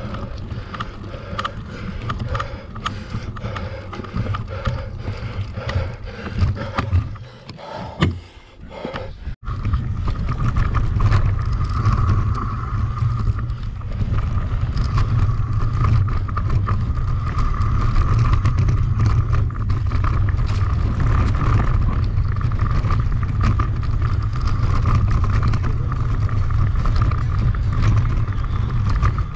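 Mountain bike in a race, heard from on board: rattling with many clicks, then from about nine seconds in a steady, louder rumble of tyres and wind at speed.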